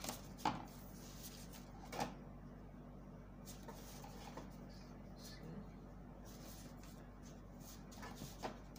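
A few light knocks and clicks from drafting tools and pattern paper being handled on a table, near the start, about two seconds in and near the end, with faint rustling between.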